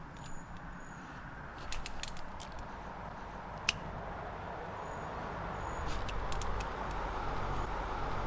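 Steady rush of flowing creek water, growing a little louder in the second half, with a few sharp clicks scattered through it.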